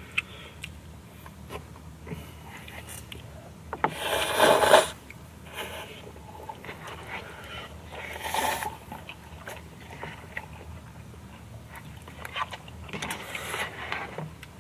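People eating spicy stir-fried instant noodles: quiet chewing, with three loud sucking sounds about four, eight and thirteen seconds in, the first the longest and loudest.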